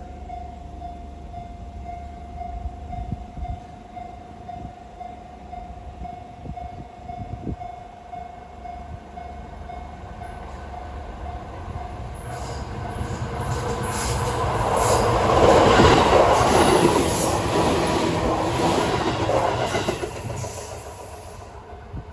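Japanese railway level crossing's old Seibu-type electronic warning alarm sounding, a steady pulsing tone that repeats evenly. About halfway through a Seibu New 101 series electric train passes over the crossing, its wheels rumbling louder to a peak a few seconds later and then fading away.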